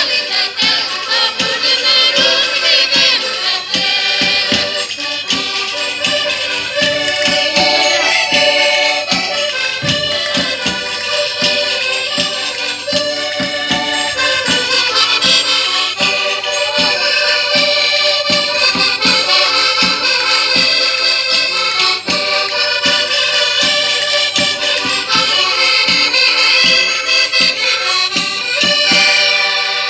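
Portuguese folk music from a rusga: accordions playing a dance tune over a steady beat of hand percussion.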